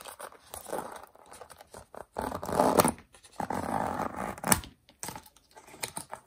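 Scraping and rustling of a cardboard box insert as a stainless steel mesh watch band is slid out of its paper tray, in three swishes of about a second each. A sharp click comes midway through.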